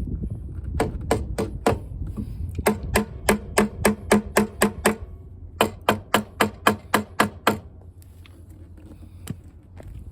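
Ratchet wrench clicking in quick even runs, about four or five clicks a second, as a fastener is loosened.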